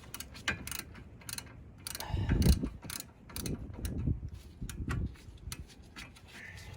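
Ratchet socket wrench clicking in irregular runs as it tightens the brake caliper bolts, with a louder, duller clatter of tool handling about two seconds in.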